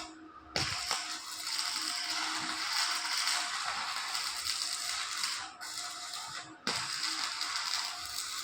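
Electric arc welding: the arc is struck about half a second in and crackles and sizzles steadily over the welding machine's hum. It breaks off briefly near the six-and-a-half-second mark, is struck again, and stops near the end.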